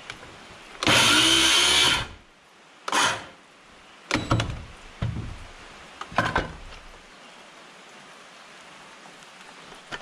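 A handheld power tool runs hard in one burst of about a second, then once more briefly. Three or four short knocks follow.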